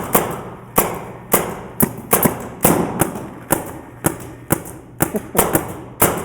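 Paintball markers firing single shots at irregular spacing, about two a second, a dozen or so in all, each sharp crack tailing off briefly.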